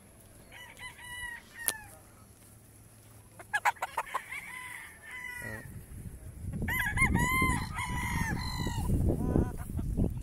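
Gamefowl roosters crowing: a shorter crow about a second in and louder, longer crows from about six and a half seconds in, with some clucking. A quick run of sharp clicks comes around three and a half seconds in, and a low rumble sits underneath in the second half.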